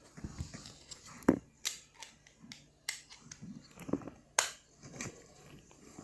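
Fabric rustling and scattered knocks and taps close to the microphone: handling noise from a phone moving against cloth. There are sharp clicks about a second in and again past the four-second mark.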